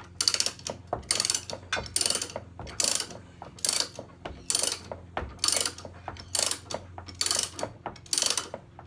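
Spare-tyre winch under the rear of a 2020 Mercedes Sprinter van being cranked with the tyre tool: a short burst of ratcheting clicks about once a second, turn after turn.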